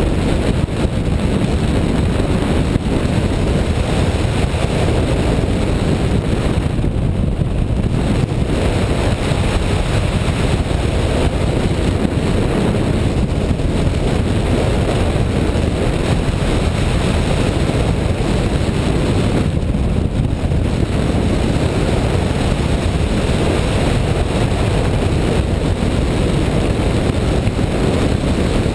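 Rushing airflow over a hang glider in flight, blowing across the glider-mounted camera's microphone: a loud, steady wind rush, heaviest in the low end, that eases briefly twice.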